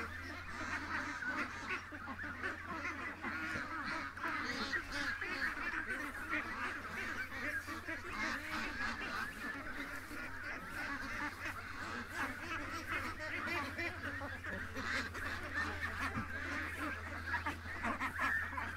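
Flock of domestic ducks and geese calling continuously, a dense mix of honking and quacking.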